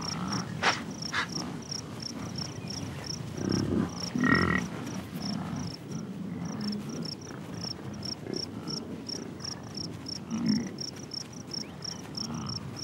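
Insects chirping in a steady, even rhythm of about four chirps a second, with irregular low sounds from American bison grazing through sagebrush close by.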